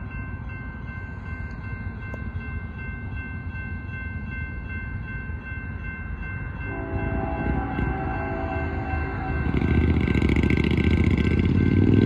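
Distant diesel freight locomotive's multi-chime air horn sounding one long blast of about three seconds, starting roughly seven seconds in, as the train approaches a grade crossing. Near the end a louder rushing noise with a sweeping pitch builds up.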